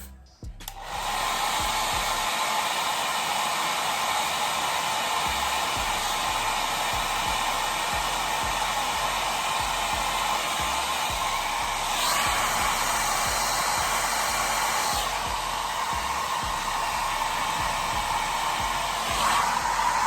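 Handheld hair dryer switches on about a second in and blows steadily, drying the freshly sprayed holding spray on a wig's lace. Its sound shifts briefly around twelve seconds in and again near the end.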